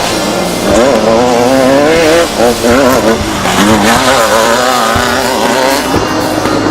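Off-road race vehicle engine revving, its pitch wavering quickly up and down.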